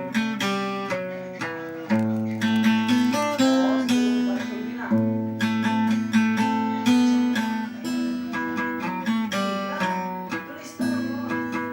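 Acoustic guitar playing an instrumental intro: a run of plucked notes ringing over held bass notes.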